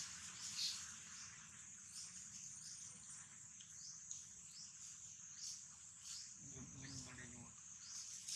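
Steady high-pitched insect chorus of crickets or cicadas, with light scattered rustles and clicks, typical of dry leaves being handled. A brief faint low voice-like call comes about six and a half seconds in.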